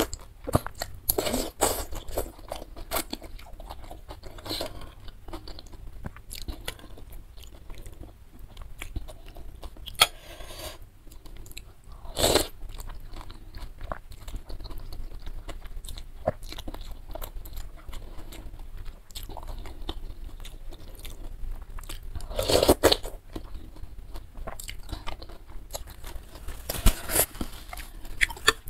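Close-miked eating sounds: a person chewing and slurping glass noodles and bean sprouts in broth, with wet mouth noises and small clicks throughout and a few louder slurps, near the start, about halfway through and again later on.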